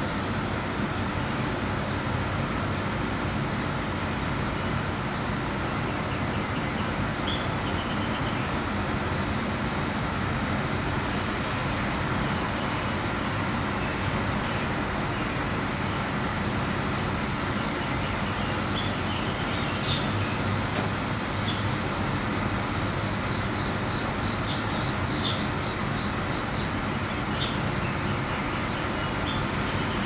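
Steady outdoor background rumble and hiss, with a songbird's short phrase of high, quick notes heard a few times.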